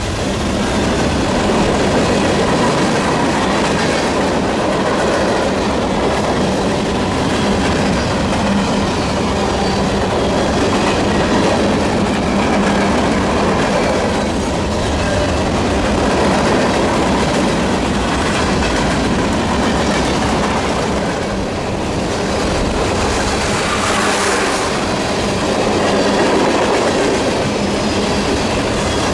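Cars of a mixed freight train (covered hoppers, flatcars, boxcars and tank cars) rolling past at close range, a steady rumble of wheels on rail.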